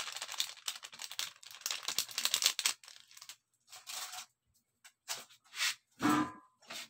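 Plastic seasoning packet crinkling and tearing as it is opened and handled: a dense rustle for the first few seconds, then short scattered rustles.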